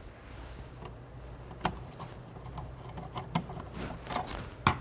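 A few faint, scattered clicks and taps of a plastic outlet wall plate being handled and pulled off the wall, the loudest click near the end, over a low steady room hum.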